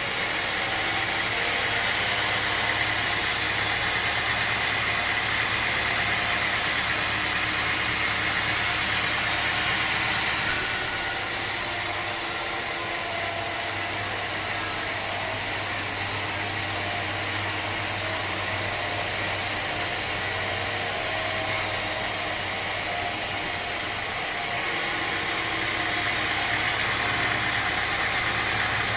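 Sawmill machinery running steadily with a low motor hum. The sound shifts abruptly about ten seconds in and again near the end.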